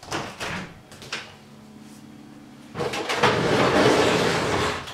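Household kitchen handling noises: a knock at the start and a click about a second in, then a loud rushing noise lasting about two seconds, over a low steady hum that sets in early.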